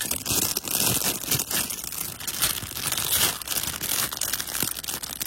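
Plastic packaging of a toy building-block set crinkling and tearing as it is pulled open by hand.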